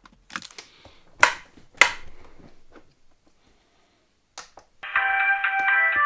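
Stiff plastic laminating-pouch sheet being handled and creased, giving three sharp crackles in the first two seconds with a brief rustle after the last. Guitar music comes in near the end.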